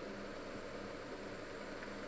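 Steady hum and hiss from an electric cooktop with pots cooking on it, unchanging throughout.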